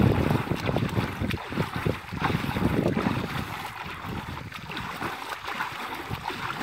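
Shallow water splashing and sloshing as two hands churn it up in uneven strokes. Louder for the first couple of seconds, then quieter.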